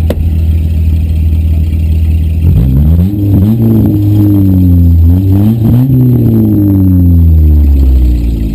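Demolition derby car engine running at a steady low idle, then revved up and down several times from about two and a half seconds in, easing back toward idle near the end.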